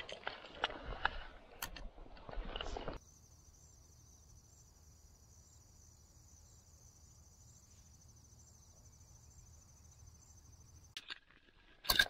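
Clattery handling noise with sharp clicks for about three seconds. It then gives way to insects chirring, a faint steady high-pitched trill over a low steady hum. Handling noise returns near the end.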